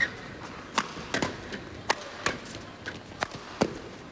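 Badminton doubles rally: rackets striking the shuttlecock in a quick exchange, about eight sharp hits at uneven gaps of under a second.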